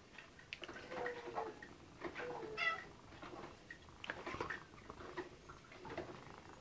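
Domestic cats meowing again and again, begging to be fed their wet food: several short calls, some falling in pitch, the loudest about two and a half seconds in.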